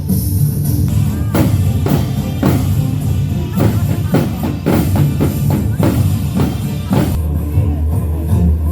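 Music: an instrumental stretch of a Turkish-language pop song, with a run of drum hits over a steady bass line and no singing.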